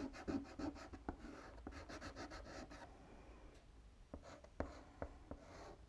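White soft pastel stick scratching over paper in quick short strokes. About halfway through it slows to a few separate taps and scrapes.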